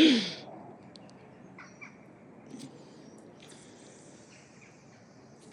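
A short, loud call that falls in pitch right at the start, then quiet lakeside background with a few faint, brief high calls, likely birds.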